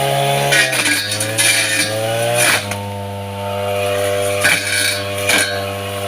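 Small petrol engine of a grass cutter running. Its pitch drops about a second in and picks up again about halfway through, with sharp ticks and short hissing swishes as the cutter strikes and slices grass.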